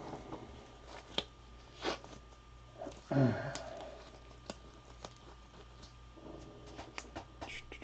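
Scattered light clicks and taps of trading cards in plastic holders being handled and laid on a table. A brief low vocal sound, like a hum or grunt, falls in pitch about three seconds in.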